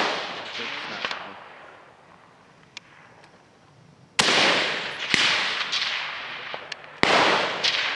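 Rifle shots on an open range: two sharp reports about three seconds apart, each trailing off in a long echo, with a fainter crack about a second after the first.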